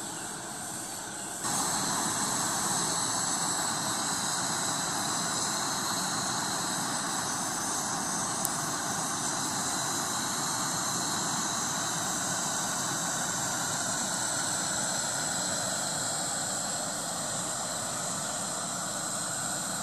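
Propane canister stove burner running at full flame under a metal tin, a steady rushing hiss that jumps louder about a second and a half in. There is one small click near the middle.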